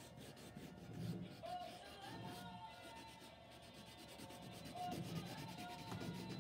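Fingertips rubbing colour into a crayon drawing on sketchbook paper, then a crayon scratching across the paper: a faint, dry, scratchy rubbing. Faint music plays underneath.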